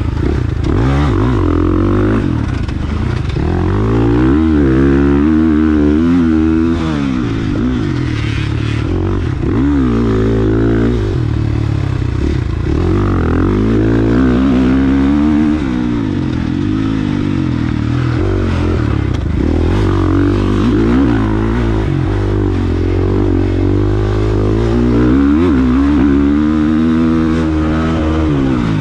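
KTM 450 dirt bike's four-stroke single-cylinder engine revving up and down as it is ridden hard over a rough dirt track, the pitch climbing and dropping every second or two, with clattering from the bike over the bumps.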